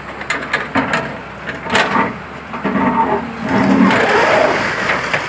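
Hydraulic excavator demolishing a concrete building: sharp cracks and knocks of concrete breaking and rubble falling, over the steady running of the excavator's engine, with the loudest stretch about three to four seconds in as a slab gives way.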